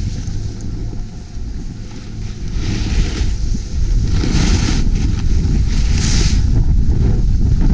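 Wind buffeting an action camera's microphone during a fast run down a groomed ski slope, growing louder as speed builds from about two and a half seconds in. Three hissing scrapes of edges cutting over the snow come with the turns.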